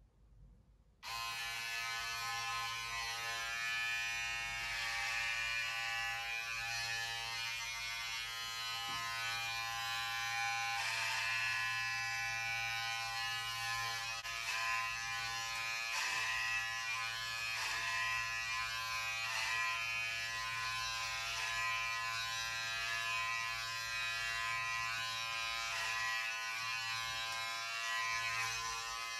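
Electric hair clippers switched on about a second in, then running with a steady buzz through long hair; the buzz wavers slightly every second or two.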